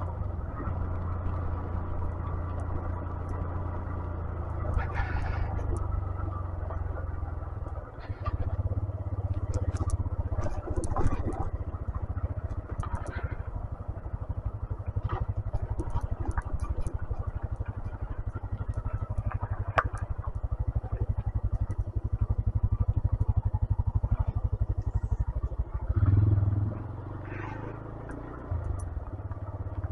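A 125cc motorcycle being ridden, its engine running with a steady low rumble and scattered clicks and rattles; the rumble swells briefly about 26 seconds in.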